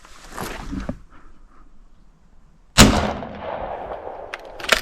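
A Stevens Model 124 12-gauge shotgun fires a single Aguila 1¾-inch mini shell about three seconds in, and the report trails off in a long echo. A few sharp metallic clicks from the gun's action follow near the end.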